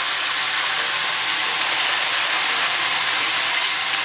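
Steady sizzling hiss of food frying in hot oil.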